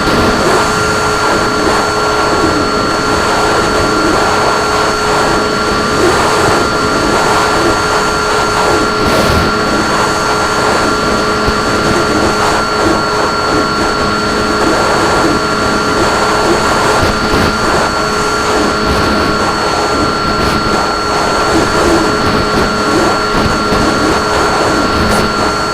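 RC plane's motor and propeller running at steady cruise, a constant whine of several held tones over rushing wind noise.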